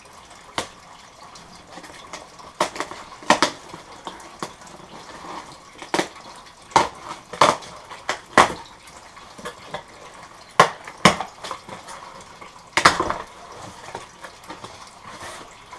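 Cardboard shipping box being opened by hand: packing tape torn and scraped off the box, with about ten sharp ripping and scraping bursts at irregular intervals.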